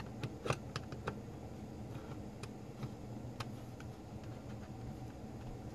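Faint, irregular plastic clicks and ticks as a metal spudger pries at the seams and latches of a battery charger's plastic case.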